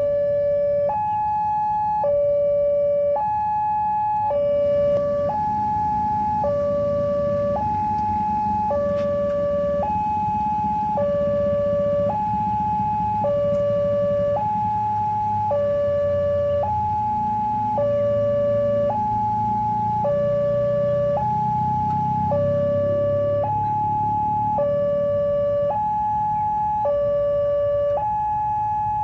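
Railway level crossing's electronic warning alarm sounding a steady two-tone hi-lo signal, switching pitch about once a second: the crossing's warning that a train is approaching, with the barrier down. A low rumble runs underneath.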